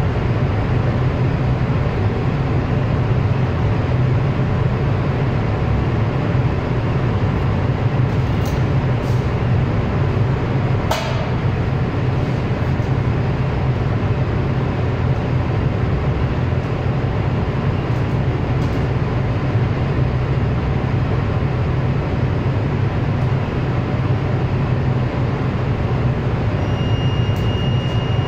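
Large generator set running steadily: a loud, even mechanical noise over a deep hum. A sharp click sounds about eleven seconds in, and a thin high tone comes in near the end.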